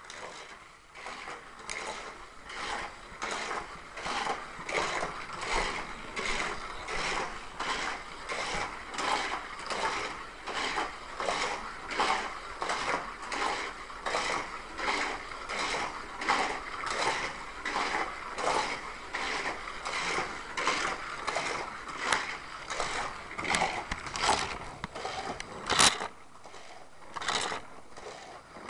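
Hot Wheels Sizzlers battery-powered toy cars running around a plastic race track, their small electric motors whirring in an even pulsing rhythm about one and a half times a second. The pulsing weakens near the end, with a sharp click.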